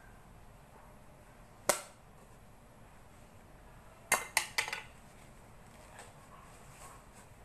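Sharp knocks of a small garden tool against a plastic plant pot while soil is packed around a coir-wrapped pole: one knock about a second and a half in, then a quick run of three or four knocks around four seconds in.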